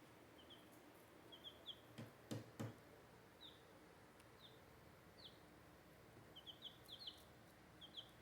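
Baby chicks peeping: short, faint, downward-sliding peeps, singly and in quick runs of two or three, scattered throughout. A few soft low knocks come about two seconds in.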